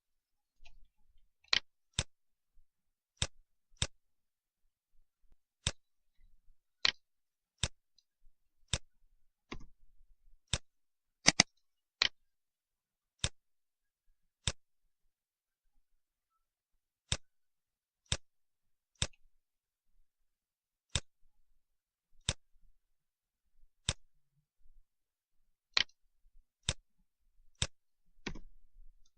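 Computer mouse buttons clicking at uneven intervals, roughly one click a second, some in quick pairs.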